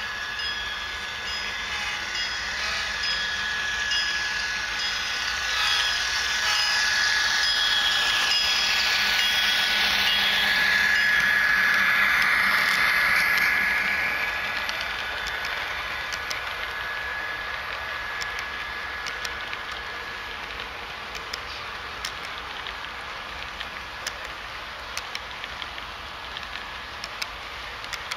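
HO scale model freight train running past on the layout track, with a bell ringing steadily as it approaches, loudest about halfway through as the front of the train passes. It then fades into a light, quick clicking as the autorack cars roll by over the rails.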